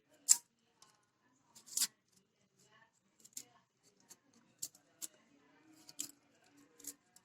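Papery garlic skin being peeled off a bulb: a series of sharp, crisp crackles and clicks, the loudest near the start and another about two seconds in, then lighter ticks every second or so.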